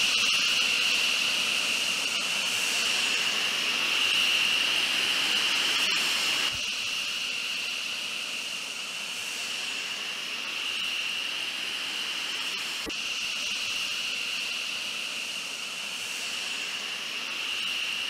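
Hellenic Air Force F-16 Block 52+ jet engine running at ground idle close by: a steady high-pitched whine over a constant hiss, dropping a little in level after about six seconds.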